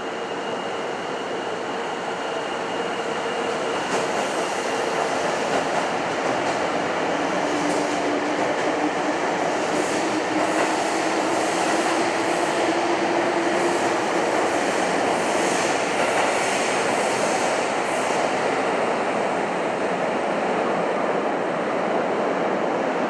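Electric commuter train moving along an underground station platform: a steady running noise that builds over the first few seconds, a faint motor whine that rises slightly in pitch mid-way, and brief wheel screeches and rail clicks.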